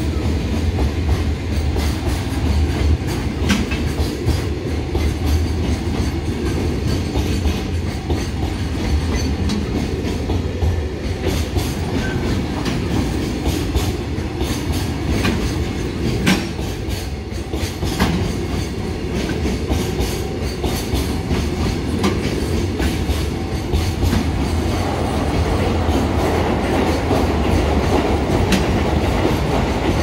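Freight train of container flatcars passing close by, its wheels clacking over the rail joints above a steady low rumble.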